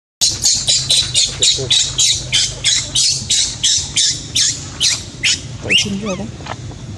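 Baby macaque screaming: a rapid run of sharp, high-pitched shrieks, about four a second, then a few shorter wavering cries near the end.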